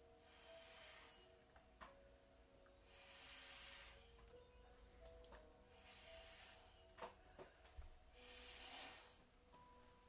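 Faint, regular breathing close to the microphone, one hissy breath about every two and a half seconds, with a few soft ticks in between.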